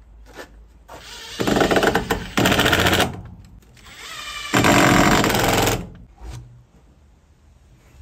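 Makita cordless impact driver driving screws into timber, in two bursts of rapid hammering about a second apart. The motor whirs up just before the second burst.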